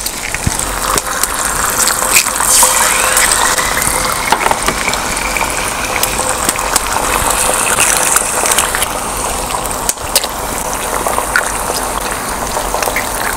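Eggs frying in hot oil on a large flat griddle: a steady sizzle, with a few sharp clicks as more eggs are cracked and dropped in.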